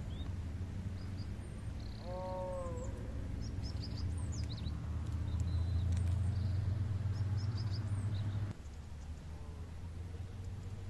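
Outdoor rural sounds: a steady low rumble that drops away sharply about eight and a half seconds in, a short falling animal call about two seconds in, and scattered high chirps of small birds.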